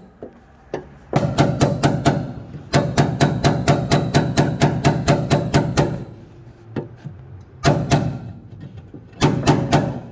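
Background music with a fast, steady percussive beat that drops out and comes back in several times.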